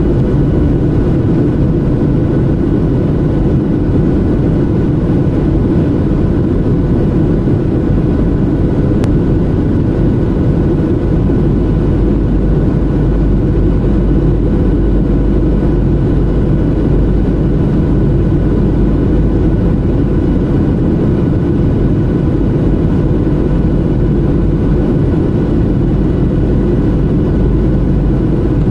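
Jet airliner cabin noise at the window seat: a steady, deep roar of the engines and the air rushing past the fuselage, with a faint steady whine on top.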